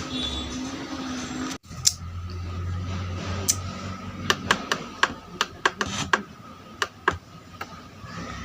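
Sharp clicks and taps, a dozen or so spread over several seconds, from handling the home theater unit's cabinet and connectors. Before them a steady hum cuts off suddenly about one and a half seconds in.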